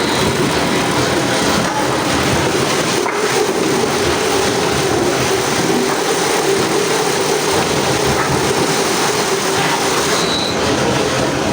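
Heavy wood-processing machinery running steadily: a loud, continuous mechanical rumble with a low hum held through it.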